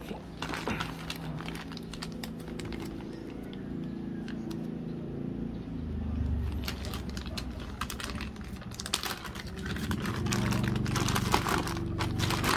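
Clear plastic packaging bags crinkling and rustling as soft protector pads are handled and slid out of them. The crackles come in irregular spurts and are busiest in the last few seconds.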